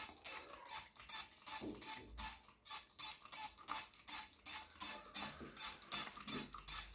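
Hand trigger spray bottle pumped in rapid repeated squirts, several a second, each a short hiss of liquid spray with the click of the trigger.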